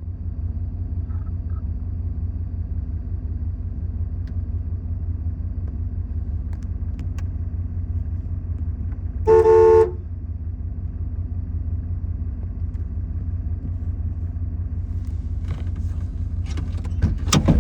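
Vehicle engine running steadily with a low hum, and one short car-horn honk of about half a second, a little past the middle.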